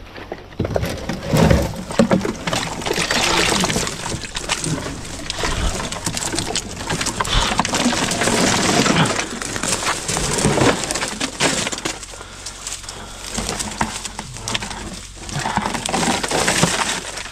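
Dry twigs and dead grass crackling, snapping and rustling as a large rusted steel car body section is dragged and heaved through the brush, with a continuous run of sharp cracks.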